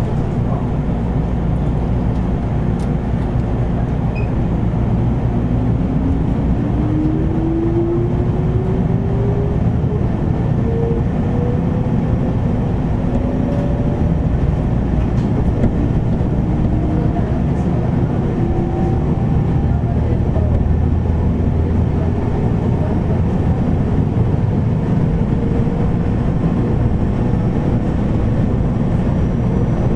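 Inside a JR 413 series electric multiple unit motor car (KuMoHa 413-5) under way: the traction motor whine climbs steadily in pitch as the train gathers speed, over a dense rumble of running noise. Loud air-conditioning noise runs underneath.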